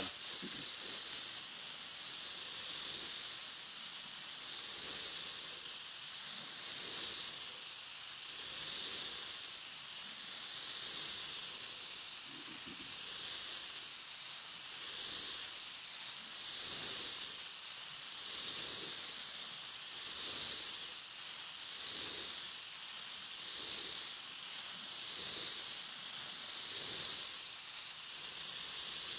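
Compressed air hissing steadily from a gravity-feed paint spray gun blowing over a thin first dust coat of primer to flash it off before the next coat.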